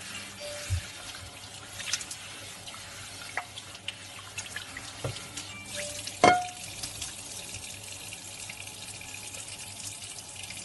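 Water running from a tap into a kitchen sink while a greasy frying pan is washed with a microfiber cloth, with scattered light clinks and one sharp knock about six seconds in.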